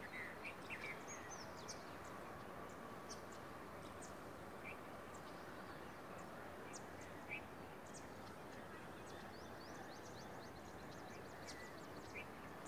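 Faint outdoor ambience: a steady background noise with birds calling in short, sharp, high chirps, scattered at first and coming in a quick flurry near the end.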